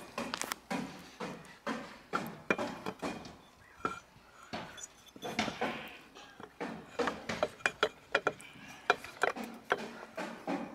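Irregular metallic clinks and knocks as an outboard motor's lower unit is handled and pushed up against the midsection housing to line up the driveshaft and shift rod.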